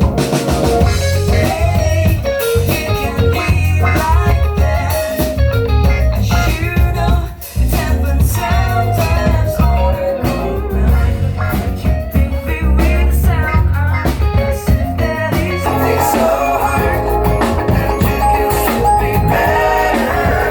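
A band playing live at a sound check: drum kit, bass and guitar together, with a short break in the playing about seven seconds in.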